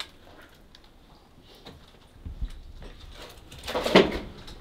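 Footsteps on a debris-strewn floor, quiet at first, then low thuds and scrapes from about halfway in, with one louder knock near the end.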